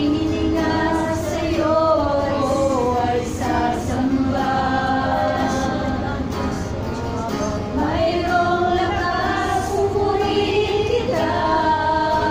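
A women's worship team singing a Tagalog praise song together in long, gliding held notes over musical accompaniment.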